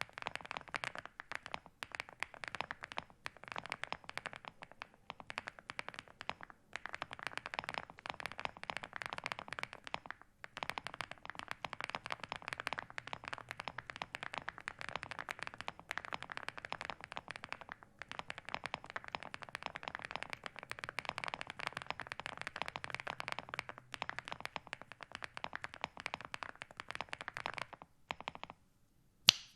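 MCHOSE GX87 mechanical keyboard being typed on quickly and continuously, a dense run of keystroke clacks with brief pauses, stopping near the end with a couple of louder clicks.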